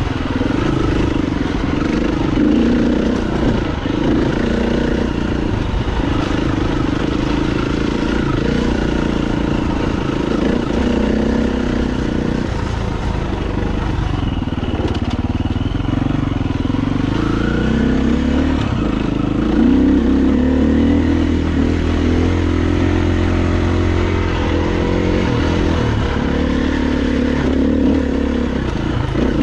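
KTM dirt bike engine running under a rider on singletrack, its pitch rising and falling with the throttle.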